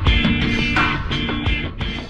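Background music: strummed guitar chords over a steady drum beat.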